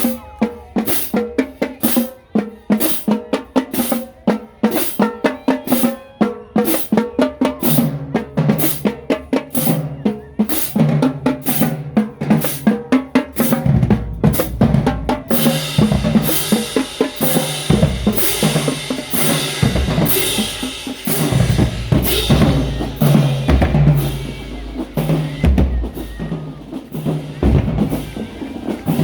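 Marching band drumline playing a fast cadence: crisp snare strokes and rimshots over booming bass drums. About halfway through, a steady high shimmer joins the strokes and the sound fills out.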